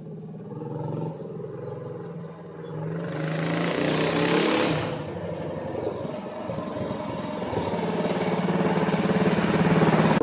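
Mini bike's modified Predator 212 single-cylinder engine running and revving under riding. There is a burst of hiss about three to five seconds in, and the engine gets louder and climbs in pitch near the end.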